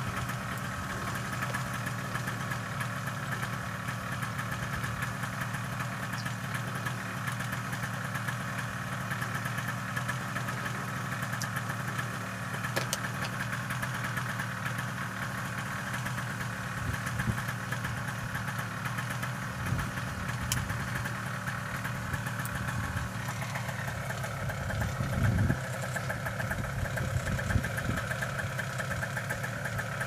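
Small two-stroke paramotor engine idling steadily, with a brief louder swell near the end.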